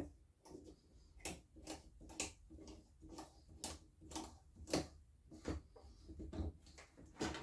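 Light plastic clicks, about two a second, as a small spring-loaded plastic knob is screwed by hand into the top of a sliding mitre saw's carriage.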